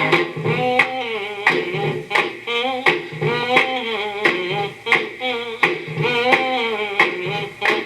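A 45 rpm rock and roll record playing through a 1956 RCA 7-EY-1EF record player upgraded with an RCA three-tube amplifier and larger speaker: singing over a drum beat that falls about every 0.7 s.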